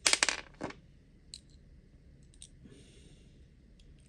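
Quick clatter of small hard parts and a hand tool being handled, a rapid run of clicks in the first second, then a few faint separate ticks and a light rustle.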